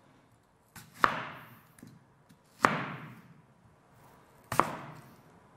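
Three knife chops through a red onion onto a wooden cutting board, each a sharp hit trailing off over about half a second, spaced roughly two seconds apart.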